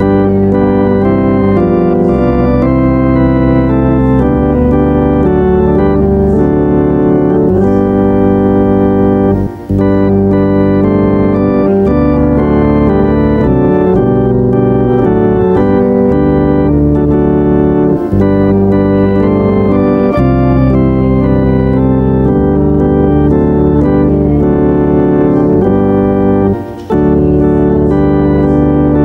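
Church organ playing a hymn in sustained chords that change every second or so, with brief breaks between phrases about ten seconds in and again near the end.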